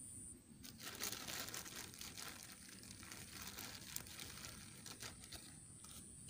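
Plastic bag crinkling and rustling as it is handled, in irregular crackles from about a second in until near the end.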